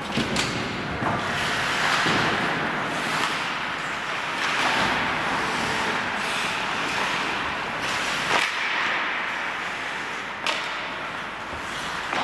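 Ice hockey skates scraping and carving on the rink ice in swelling waves, with a few sharp clacks of sticks and puck: two near the start, one past the middle and one near the end.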